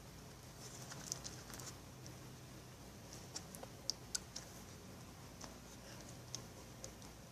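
Faint, irregular sticky clicks and small pops of clear glue slime being gathered up and handled by hand, the sharpest clicks around four seconds in.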